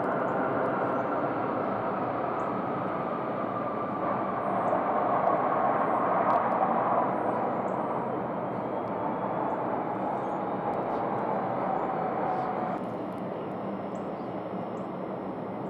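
Delta Boeing 757-200's Pratt & Whitney PW2037 turbofans running as the jet rolls along the runway: a steady rumble with a whine that slowly falls in pitch, loudest about a third of the way in. About thirteen seconds in it cuts to a quieter, steadier jet rumble.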